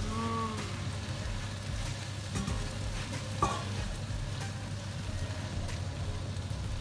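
Sizzling from a frying pan of meat-and-tomato sauce as drained spaghetti is tipped in and stirred with chopsticks. A short squeak comes near the start, and a sharp metal clink about three and a half seconds in as the steel colander is set down.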